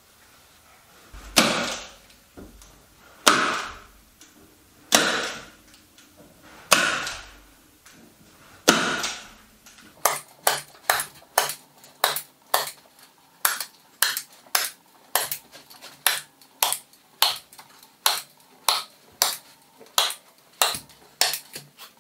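Hand staple gun fastening a wool carpet pad to the subfloor: five loud strikes about two seconds apart, then from about halfway a quicker run of lighter strikes, about two a second.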